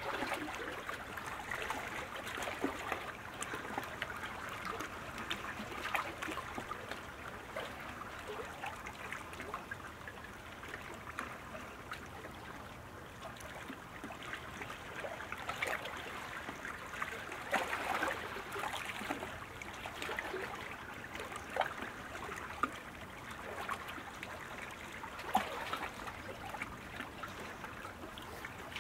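Water splashing and trickling from sprint kayak paddle strokes, a steady wash of small irregular splashes with a few sharper ones now and then.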